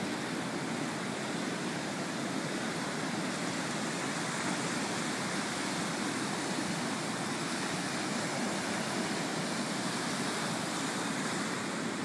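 Small breaking waves and foam washing up the wet sand at the water's edge, a steady unbroken surf noise with no separate crashes.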